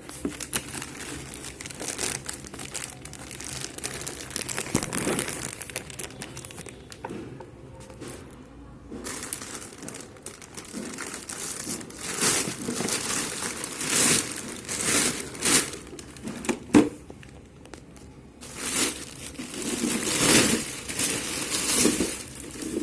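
Packaging around the parts of a ride-on toy car being crinkled and torn as they are unwrapped, in irregular rustling bursts, with one sharp knock about 17 seconds in.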